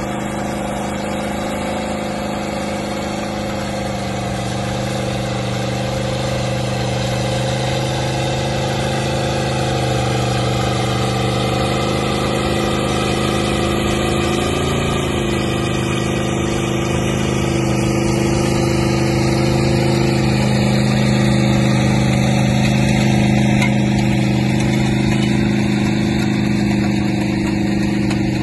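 Linn tractor's engine running steadily as it hauls a train of sleighs along, getting gradually louder as it comes closer.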